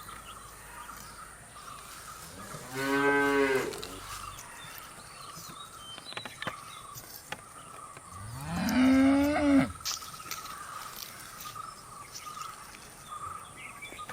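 Cattle mooing: two separate moos about five seconds apart, the second rising at its start and a little longer than the first.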